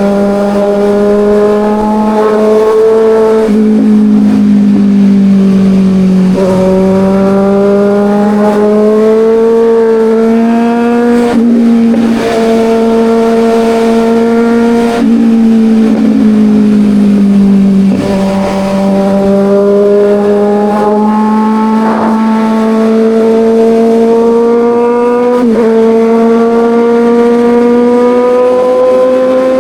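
Kawasaki Ninja 1000's inline-four engine pulling under load. Its pitch climbs slowly and drops briefly several times as it is shifted through the gears.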